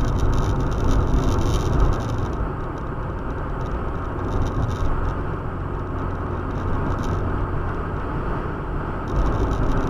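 Steady road and engine noise heard from inside a moving car, a low rumble with tyre noise. The higher hiss eases off about two and a half seconds in.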